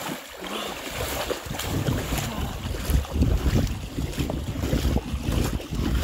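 Shallow river water splashing and sloshing as a person wades and runs through it, with a low wind rumble buffeting the microphone from about a second in.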